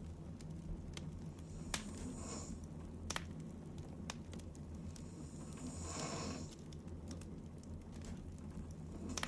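A sleeping woman breathing slowly with soft, airy snoring breaths, one about two seconds in and another about six seconds in, over a steady low hum. A few sharp clicks come in between the breaths.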